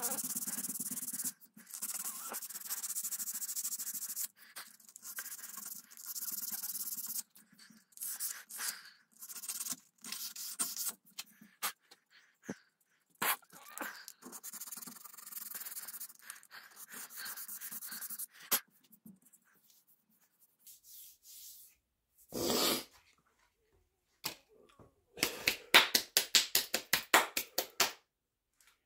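Sandpaper rubbed by hand along a wooden gunstock: long rasping sanding strokes, then scattered short scratches with a brief burst of noise, and a quick run of short, sharp strokes near the end.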